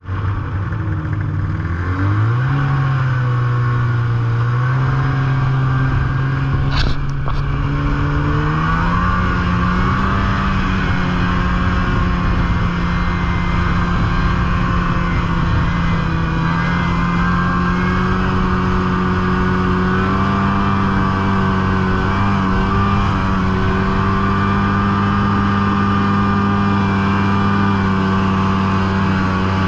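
Snowmobile engine running under way, its pitch climbing as it accelerates about two seconds in and again around eight to ten seconds in, then holding a steady cruising note. A brief click about seven seconds in.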